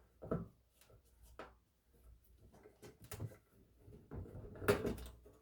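Faint scattered clicks and light knocks from handling the Binson Echorec's chassis and parts on the workbench, with a louder clatter near the end.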